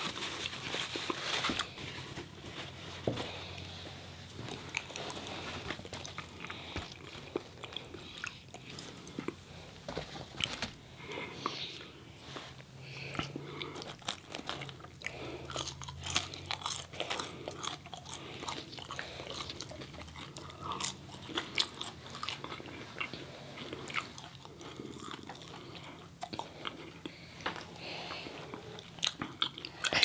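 Close-miked eating: crunchy bites and chewing of fried chicken fingers and crinkle-cut fries, a rapid scatter of short crackles and crunches throughout.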